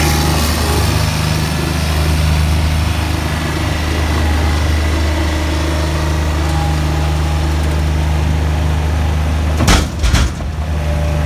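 Bobcat 463 compact skid-steer loader's diesel engine running steadily. Near the end comes a short burst of loud crashes as the bucket tips broken-up asphalt into the dump trailer.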